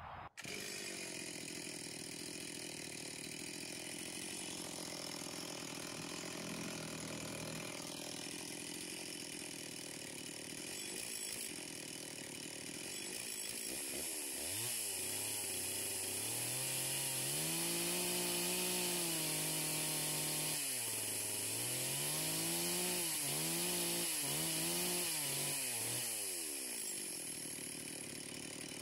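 Two-stroke chainsaw cutting wood, its engine note rising and falling again and again as the throttle is worked, loudest in the second half.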